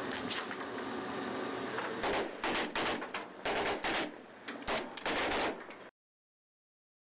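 A steady rushing hiss for about two seconds, then several short bursts of automatic assault-rifle fire, which cut off abruptly near the end.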